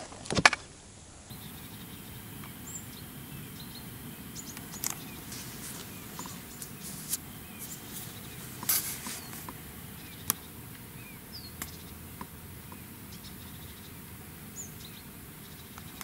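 Quiet lakeside outdoor ambience: a steady low background hiss, with a few brief bird chirps scattered through and several sharp clicks and taps.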